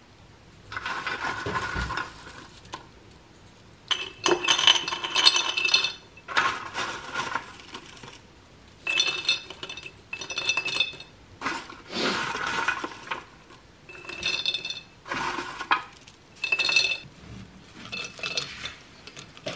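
Handfuls of crisp fried scallion crackers (kripik daun bawang) dropped into a glass jar: dry crunchy rattling with the jar ringing, in about ten separate bursts.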